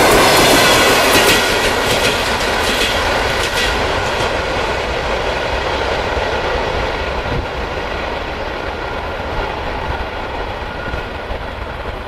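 ET2M electric multiple unit passing close by, its wheels clicking sharply over the track for the first few seconds as the last car goes past. The train's rushing rumble then fades steadily as it pulls away into the distance, losing its high end first.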